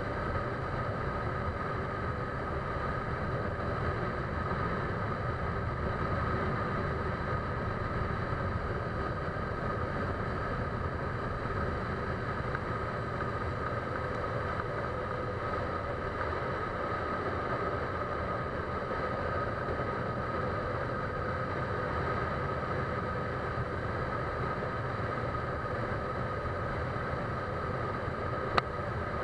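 A steady engine-like drone with a low rumble and a few constant tones, unchanging throughout, and one sharp click near the end.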